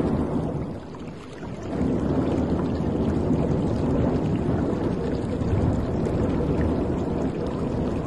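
Sea water rushing and splashing against the hull of a moving cruise ship: a steady low rushing that eases briefly about a second in, then picks up again.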